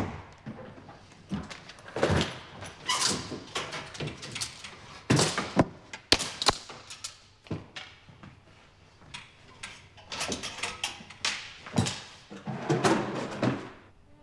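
Clothes being pulled out of a wardrobe and dumped on a bed: irregular knocks of wardrobe doors and clothes rustling, with a few sharp knocks around the middle.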